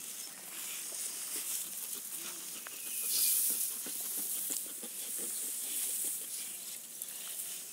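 Dry straw and tufts of fibre rustling as they are handled and stepped on, a hissing crackle that swells about three seconds in.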